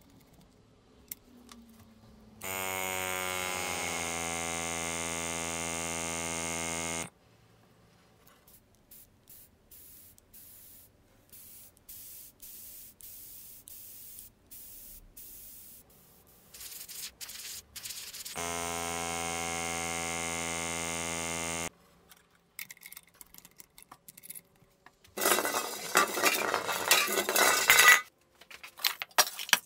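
Small diaphragm airbrush compressor running with a steady hum and air hiss for about four and a half seconds, then stopping. A few clicks follow, and it runs again for about three seconds. Near the end, empty metal gas canisters clink and clatter loudly as they are handled.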